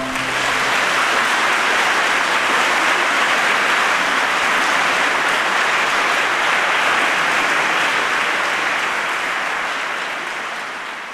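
Audience applauding steadily after a choir's final chord, whose last low notes ring on in the church for a moment at the start. The applause tapers off slightly near the end.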